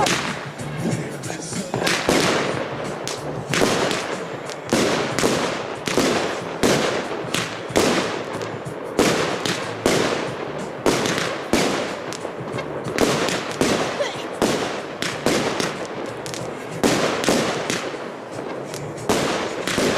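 Consumer firework batteries firing shot after shot, two identical cakes going off together. Each shot is a sharp report about every three-quarters of a second, with crackle between them.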